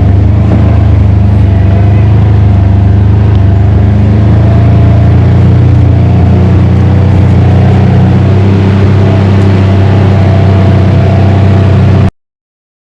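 An engine running steadily with a low, even hum whose pitch shifts slightly around the middle. It cuts out abruptly near the end.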